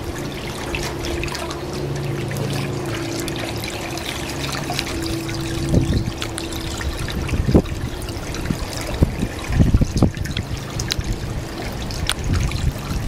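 Fresh water trickling out of a boat's scupper into the water, with a manatee's mouth at the outflow. A steady low hum runs for the first half. From about halfway, irregular splashes and gulps come as the manatee drinks from the stream.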